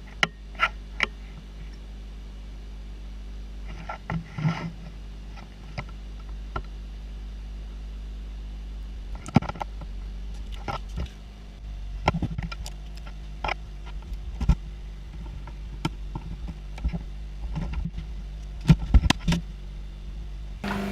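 Scattered clicks and knocks, a few at a time, over a steady low hum.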